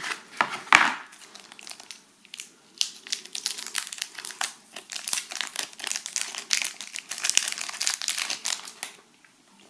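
Thin clear plastic film wrapper crinkling as it is peeled by hand off a small camera battery, a dense run of irregular crackles. There is one louder brief rub a little under a second in.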